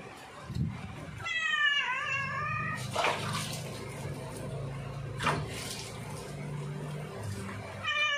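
Wet Siamese cat meowing while being bathed: one long wavering meow about a second in and another starting near the end, with a few splashes of water between them.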